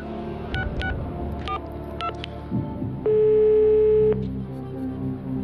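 Telephone tone dialing: several short dual-tone keypad beeps, then about three seconds in a single one-second ringing tone on the line as the number connects.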